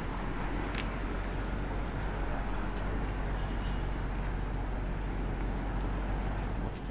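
Steady low rumble of motor vehicles, with a constant low hum and a single sharp click under a second in.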